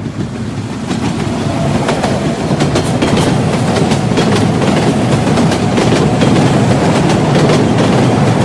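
Train running along the rails, wheels clattering over the rail joints, growing louder as it approaches.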